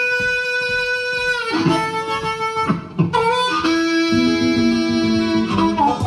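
Blues harmonica played cupped against a vocal microphone, opening with one long held note of about a second and a half, then a run of shorter notes. An acoustic guitar plays underneath.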